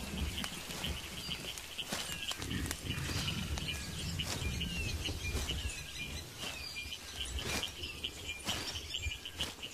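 Outdoor wild ambience: small birds chirping over and over, with a steady low background noise and scattered short clicks and rustles.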